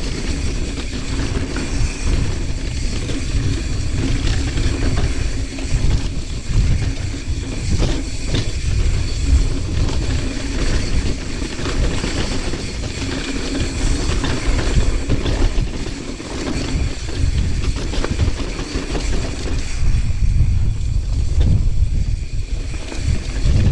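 Strong wind buffeting the microphone of a mountain biker riding downhill, a steady low rumble that swells and eases with the gusts.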